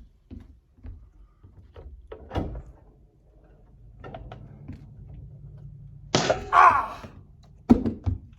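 Metal panel and filter of a home HVAC unit being handled: scattered knocks and scrapes, a loud rattling scrape about six seconds in, then a hard thunk near the end.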